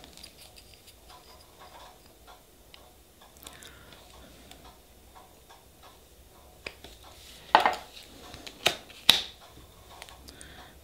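Small taps and clicks of nail-stamping tools, the stamper and metal stamping plate, being handled and set down. A few sharper, louder clicks come in a cluster about two-thirds of the way through.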